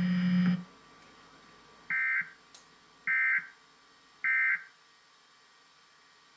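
Emergency Alert System end-of-message data bursts: three short two-tone warbling squawks about a second apart, the coded signal that closes the required monthly test. Before them a steady low buzz cuts off about half a second in.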